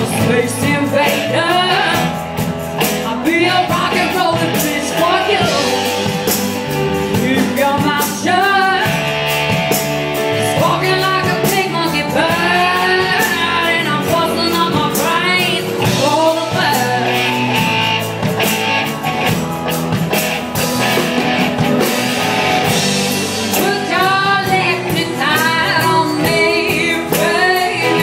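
Rock band playing live, with a singer's voice over drums keeping a steady beat.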